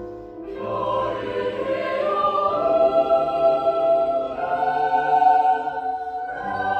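A choir singing sustained chords, swelling louder about half a second in and moving to new chords a few times.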